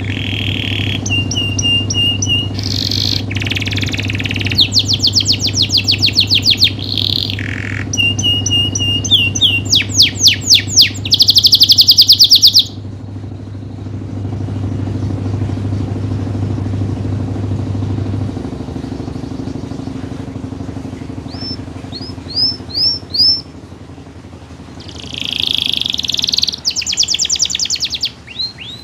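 Domestic canary in full song: fast, loud trills and rolls in quick succession, stopping about halfway through, then resuming with short trill phrases near the end.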